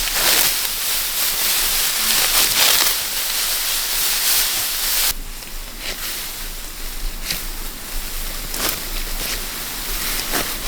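Rustling and swishing of ripe rice plants as people push through the stalks, a steady hiss with brief swishes that turns abruptly quieter about five seconds in.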